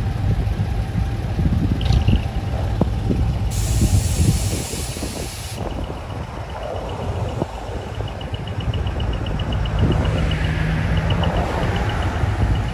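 Truck diesel engines running as the trucks roll past, with a loud air-brake hiss about three and a half seconds in that lasts about two seconds.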